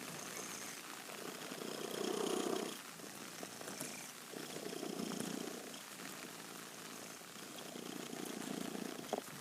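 Domestic cat purring on a sofa, in slow long swells about every three seconds, with a steady hiss of rain behind.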